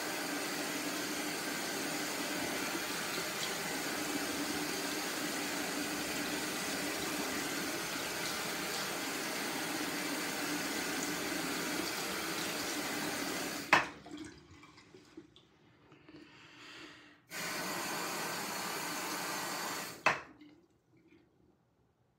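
Bathroom sink tap running steadily, shut off with a sharp knock about 14 seconds in. After a few seconds of faint handling sounds it runs again for about three seconds and is shut off with a second knock.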